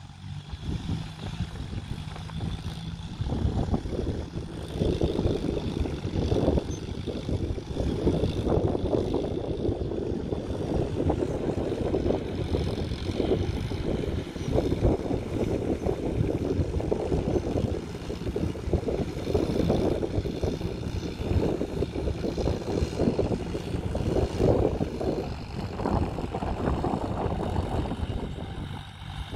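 Diesel engines of two farm tractors, a Kubota and a John Deere, running under load as they till a field, heard from a distance as a steady, rumbling drone. Wind buffets the microphone, so the drone rises and falls.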